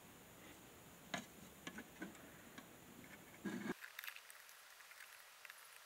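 Faint clicks and taps of hands handling the opened plastic case and circuit board of a plug-in power meter, with a brief louder scrape about three and a half seconds in. Just after it the background hiss cuts out suddenly.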